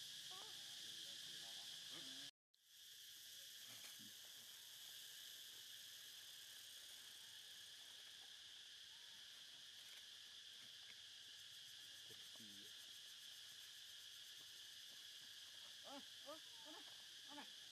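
Faint, steady high-pitched drone of forest insects, unbroken except for a moment's dropout about two seconds in.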